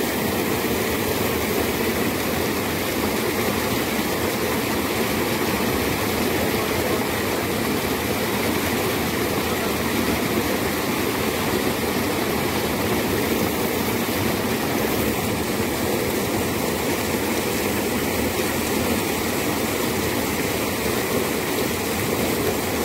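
Fast-flowing water in a narrow irrigation channel rushing and churning into white water, a steady unbroken noise.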